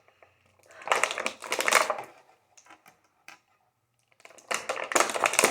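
Plastic model-kit parts rattling and crackling as they are pulled from their packaging: two bursts of dense, rapid clicking, one about a second in and another starting near the end.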